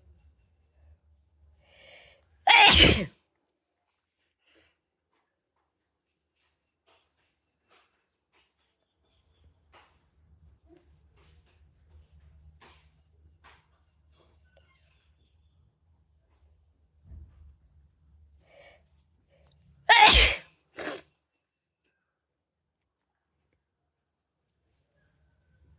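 A person sneezing loudly, with sneezes brought on by tickling the nose. One sneeze comes a few seconds in. Another comes near the end, followed about a second later by a smaller second sneeze.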